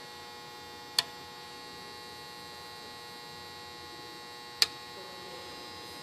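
Two sharp clicks, about three and a half seconds apart, from toggle switches being flipped on an aircraft weighing-scale readout box to select each scale's reading. Under them runs a steady electrical hum.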